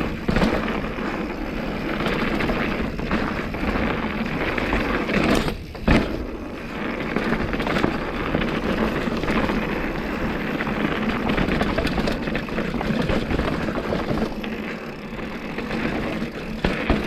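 Mountain bike riding over a rocky trail: a steady rumble of tyres and rushing air with scattered knocks and rattles. A sharp knock comes about six seconds in.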